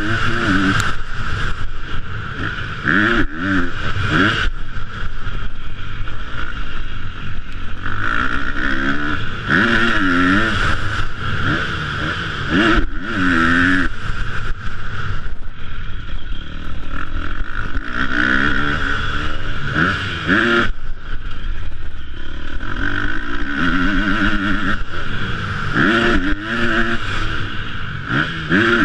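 Motocross bike engine revving hard, its pitch climbing and dropping again and again as the rider accelerates, shifts and backs off.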